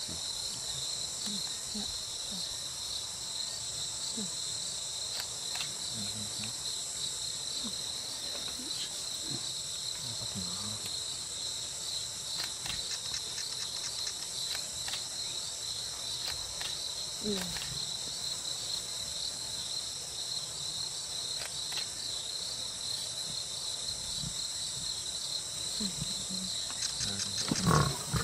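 Steady chorus of crickets, with lions feeding on a kill close by: crunching and tearing at the carcass and now and then a short low growl. A louder burst of crunching and growling near the end.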